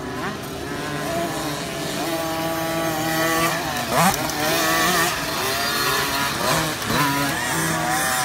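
Several 50cc two-stroke motocross bikes revving as they ride past, their buzzing engines rising and falling in pitch and growing louder, with one passing close about four seconds in.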